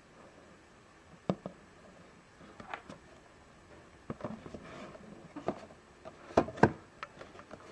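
Fingers tapping and rubbing on a cardboard figure box as it is held and turned: a scatter of light, irregular taps and short scrapes, the strongest pair about six and a half seconds in.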